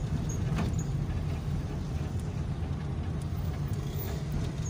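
Car driving in slow traffic, heard from inside the cabin: a steady low engine and road rumble, with a faint click about half a second in.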